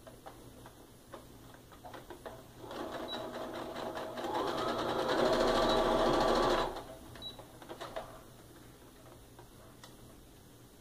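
Domestic electric sewing machine stitching a seam. It starts about a quarter of the way in, runs faster and louder partway through, and stops suddenly after about four seconds. Light clicks come before and after it.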